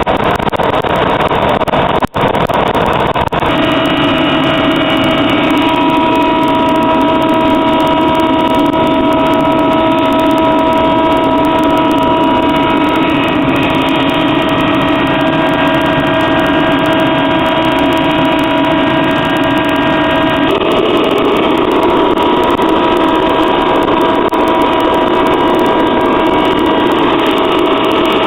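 Waste-oil furnace burning used motor oil: a loud, steady roar of burner and air blast. From about three seconds in, several steady whining tones sit on top of the roar, after a momentary dropout just before.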